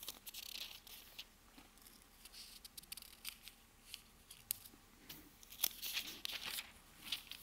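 Thin Bible pages being leafed through by hand: a faint, irregular run of quick papery flicks and rustles as the pages turn.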